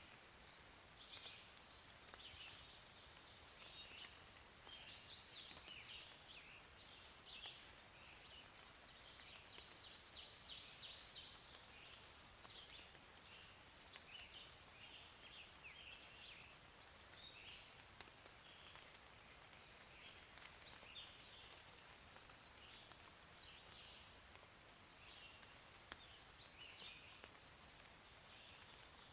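Birds chirping and trilling in many short, high calls, busiest a few seconds in, over a faint steady hiss.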